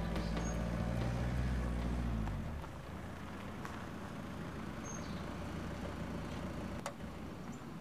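A low steady drone ends about two and a half seconds in, leaving the quieter sound of a Volkswagen Transporter van rolling slowly across a dirt clearing and coming to a stop. There are small clicks throughout, and one sharp click near the end.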